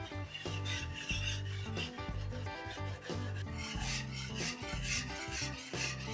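Wire gravy whisk scraping across the bottom of a skillet through simmering cream, in quick repeated strokes, a few a second. The scraping is the browned bits from seared chicken being loosened into the cream sauce.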